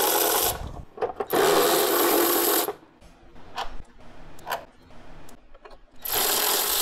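Cordless power driver with a 13 mm socket spinning out the air box hold-down bolts. There are three runs: a short one at the start, a longer one of about a second and a half, and another starting near the end. Light clicks of the loosened bolt being handled come in between.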